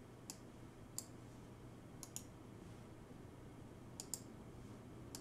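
Sharp, light clicks of a computer mouse, singly and in quick pairs about every second or two, over a faint steady low hum.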